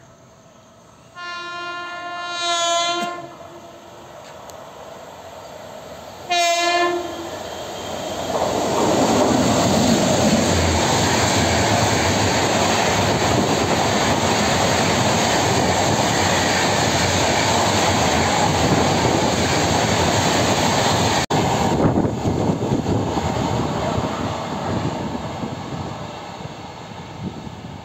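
WAP-7 electric locomotive's horn sounds twice, a long blast about a second in and a short one about six seconds in, as the train approaches. The Tejas Express then runs through at speed, its wheels loud and steady on the rails for about fourteen seconds, fading away near the end.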